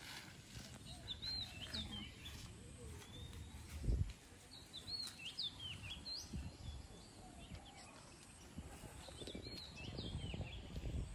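A bird singing a short phrase of quick high notes, repeated three times about four seconds apart, over outdoor low rumbling, with one dull thump about four seconds in.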